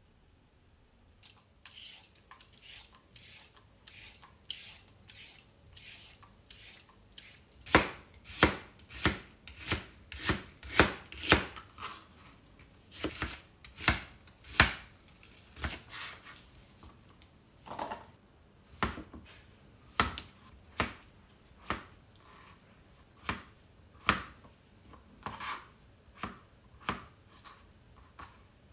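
Kitchen knife chopping on a cutting board in a series of sharp knocks: slicing onion, then dicing potato. The strokes come about two a second and loudest in the middle, then slow to about one a second.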